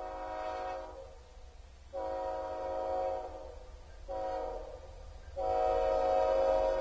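Canadian Pacific freight locomotive's air horn sounding the grade-crossing signal as the train approaches: a long blast ending about a second in, a second long blast, a short one, then a final long blast starting near the end. The horn gets louder as the train nears.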